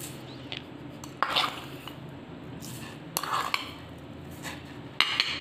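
Metal spoon clinking against a cooking pot as spoonfuls of sugar are added, a few separate clinks with a cluster near the end, over a low steady hum.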